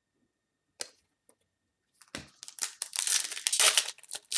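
A foil trading card pack being torn open, its wrapper crinkling and crackling for about two seconds, starting about two seconds in after a single soft click.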